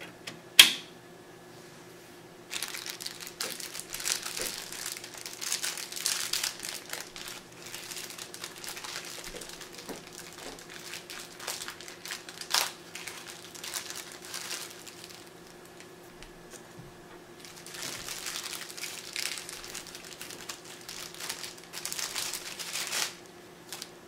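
A sharp click about half a second in, then packaging crinkling as it is handled, in two long stretches with a quiet gap between.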